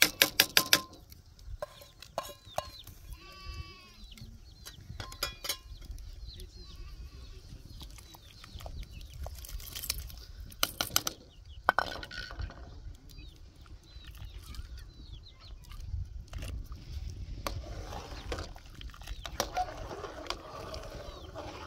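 Sharp knocks and clinks, loudest just at the start and again around ten to twelve seconds in, with livestock calling several times in the first six seconds.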